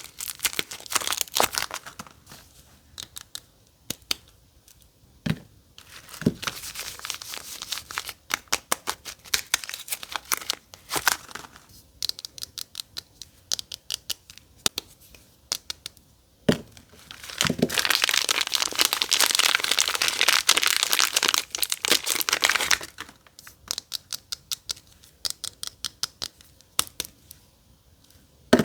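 Soap packaging being crinkled and torn open by hand: many sharp crackles throughout, with a denser, louder stretch of continuous crinkling and tearing past the middle.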